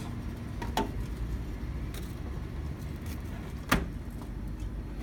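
Vending machine running with a steady low hum. There is a light clack about a second in and a sharper knock a little before four seconds in, as drinks are taken out of the delivery bin.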